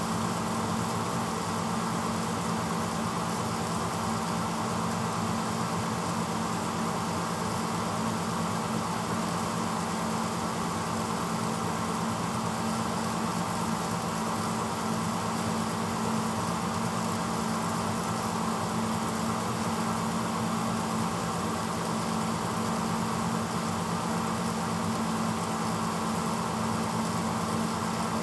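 1986 Hotpoint Potwasher dishwasher running mid-cycle: a steady motor hum under an even rushing noise of water circulating inside the tub.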